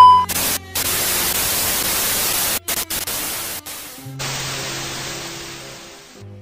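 Analogue TV static: a loud steady test-pattern beep cuts off in the first instant, then an even white-noise hiss follows. The hiss drops out briefly a few times, turns duller about four seconds in and fades away near the end.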